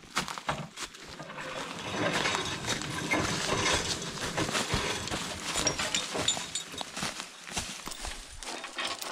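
Footsteps crunching through dry leaf litter as a steel winch cable is dragged along the forest floor, pulled out by hand from a skidder's winch: a dense, irregular crackle and rustle.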